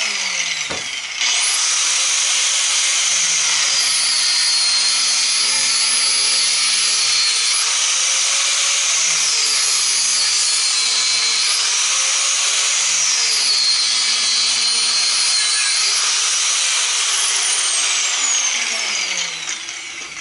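Angle grinder running at speed with a high whine. It stops and restarts about a second in, then drops in pitch three times for a few seconds each as it is loaded in the cut. It winds down with a falling whine near the end.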